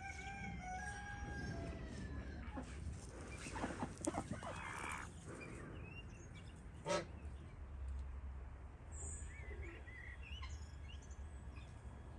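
A rooster crows once, a long call held for about two seconds at the start. Shorter poultry calls follow, then a sharp knock about seven seconds in and faint small-bird chirps near the end.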